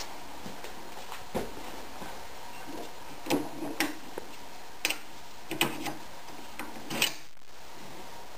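Scattered short metal clicks and knocks, about seven, from the parts of a homemade bender for 15 mm copper heating pipe being handled: its lever, pin and aluminium bending disc.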